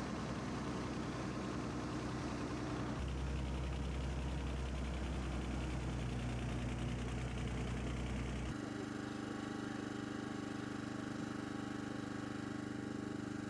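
A motor vehicle's engine running steadily with a low hum. The sound changes abruptly twice, as from one engine recording to another.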